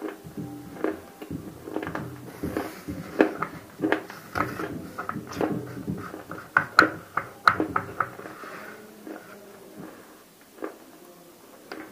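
Close-miked chewing of a hard cube coated in roasted nakumatt clay paste: a run of irregular sharp crunches that thin out after about eight seconds.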